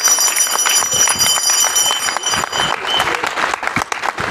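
Crowd applauding. A steady, high whistle-like tone sounds over the clapping for the first few seconds, then stops.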